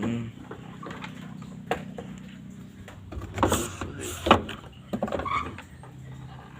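Panasonic washing machine being handled: several sharp knocks and clatters, the loudest about halfway through, over a steady low hum.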